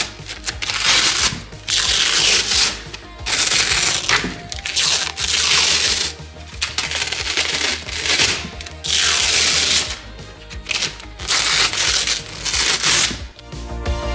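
Stiff paper packing inserts crinkling and rustling in repeated swells as they are pulled out of felt storage bins, over background music.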